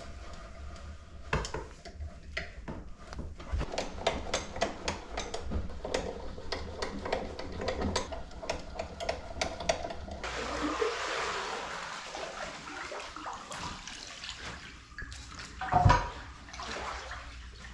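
Sharp clicking and knocking of a socket wrench ratcheting on bolts in a wooden dock frame, then water swishing and lapping as a small wooden dinghy is worked along with an oar. There is one heavy knock near the end.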